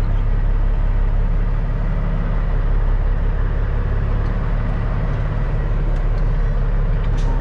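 CAT C15 diesel engine of a Peterbilt 379 running steadily, a low rumble heard from inside the cab.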